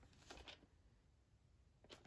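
Near silence with faint rustling as a VHS tape box is handled on a bedsheet, about half a second in and again just before the end as it is picked up.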